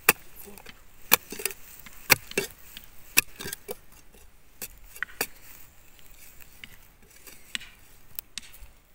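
Short-handled metal digging tool chopping into hard, dry soil: sharp strikes about once a second for the first five seconds or so, then only a couple more near the end.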